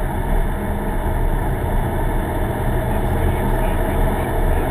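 Steady in-cabin noise of a car being driven: the engine running at an even pace under a constant low rumble of road and tyre noise.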